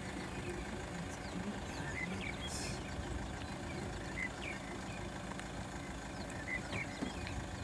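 Vehicle engine idling, a low steady rumble, with short high chirps now and then.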